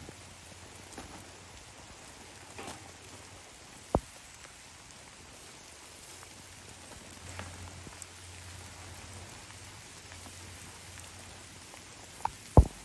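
Steady rain falling, with a single sharp knock about four seconds in and two louder sharp knocks near the end.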